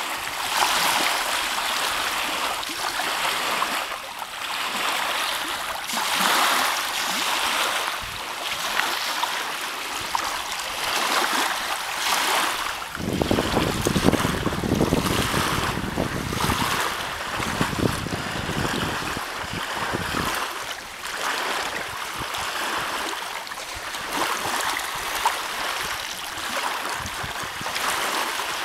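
Small wind-driven waves lapping at a lakeshore, a steady wash of water that swells and eases every couple of seconds. From about halfway through, for several seconds, wind buffets the microphone with a low rumble.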